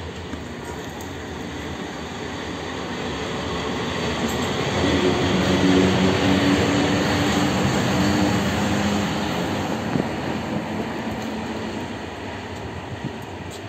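PKP EP07 electric locomotive running past close by. Its noise grows louder as it approaches, peaks about six seconds in with a low steady hum of several tones, then fades as it moves away.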